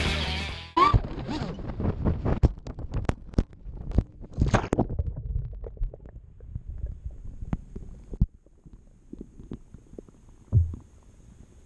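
An FPV quadcopter hits a pond with a sudden splash about a second in, cutting off the background music. Muffled underwater bubbling and crackling follows, picked up by its submerged action camera, and thins out and fades over the next several seconds. A single dull low thump comes near the end.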